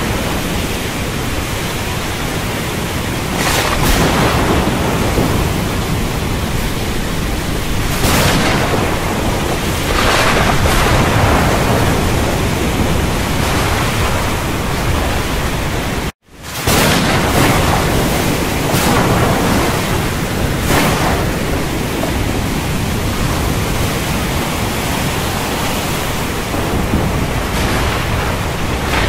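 Thunderstorm soundscape: a dense, steady rush of storm noise that swells louder several times, cutting out abruptly for an instant about halfway through.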